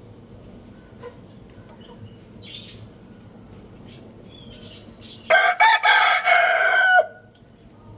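Rooster crowing once, a loud call of almost two seconds starting about five seconds in, with faint clucks and small bird chirps before it.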